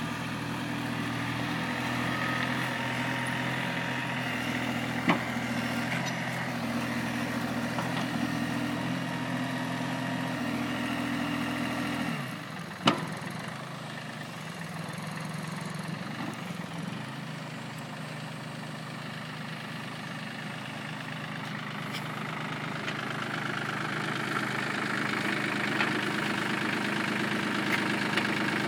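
Compact tractor engine running steadily, then dropping to a lower, quieter speed about twelve seconds in, with a sharp click just after; the engine gets louder again toward the end.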